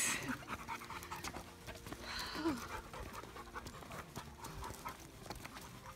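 Panting, with footsteps crunching on a stony dirt trail as a series of short ticks.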